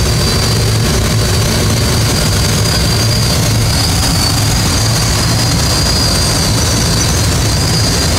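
Steady rush of air and a low engine drone heard inside a glider cockpit on the climb under tow, with a thin high whistle held throughout.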